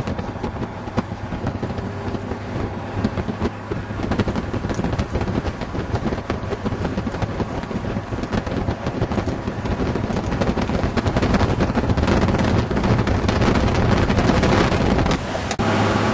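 Wind buffeting the microphone with constant crackling, over the low rumble of a vehicle on the road.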